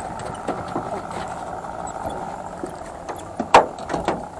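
Spinning reel being cranked during a jig retrieve: a steady whir of the reel's gears with light ticks, and one sharp click about three and a half seconds in.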